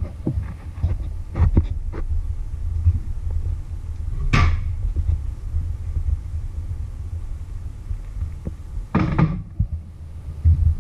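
Kitchen handling sounds: scattered knocks and clinks as things are taken from the fridge and set down, the sharpest about four seconds in and a longer clatter near nine seconds, over a steady low rumble.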